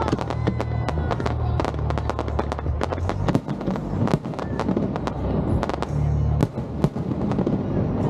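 Aerial fireworks bursting in a rapid, uneven string of bangs and crackles, with music playing underneath.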